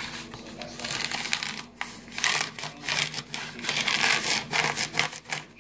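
A tortoise biting and chewing banana: an irregular run of short, crackly bites and mouth noises.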